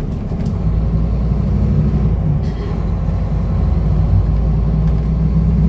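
Scania N230UD double-decker bus's five-cylinder diesel engine running under way, with a steady low drone and road rumble, heard from inside on the upper deck.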